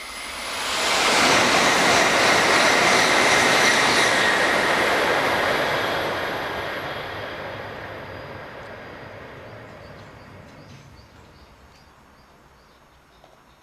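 Shinkansen bullet train passing through the station at speed without stopping. A rush of wind and rail noise swells quickly and stays loud for several seconds with a thin steady high whine, then slowly dies away as the train recedes.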